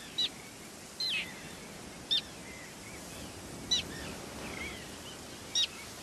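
Common terns calling: five short, sharp, high calls that slur downward in pitch, spaced a second or two apart, over a steady background hiss of wind and surf.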